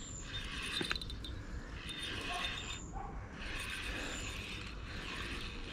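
Daiwa N'Zon feeder spinning reel whirring as it is worked while playing a hooked fish, its gears and rotor running with a short break about three seconds in.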